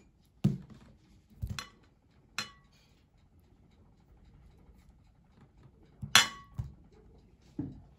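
Scattered clinks and dull knocks as cubes of butter are slid off a plate into a glass mixing bowl, the plate's edge tapping the glass and the butter landing; the loudest knock comes about six seconds in.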